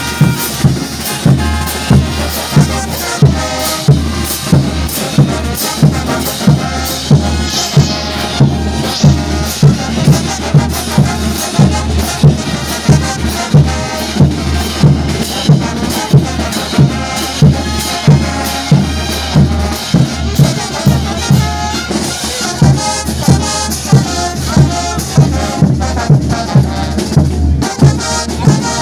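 Bolivian brass band playing: massed brass over a steady, evenly repeating drum beat.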